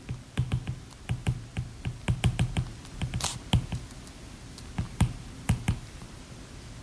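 A run of irregular light clicks and taps, each with a soft thud beneath it. They are thickest in the middle and die away shortly before the end.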